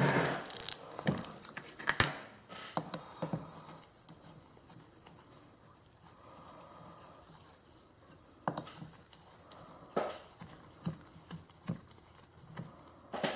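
Steel socket-head cap screws and an L-shaped hex key clicking and tapping against a collet chuck's steel backplate as the bolts are set and turned in by hand. The clicks come irregularly, with a quieter stretch in the middle.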